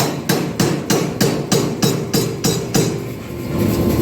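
Power hammer striking a spring fuller on a hot 5160 steel bar, a fast even run of blows, about three a second, that stops near the end; the fuller is marking the bar. A steady hum runs underneath.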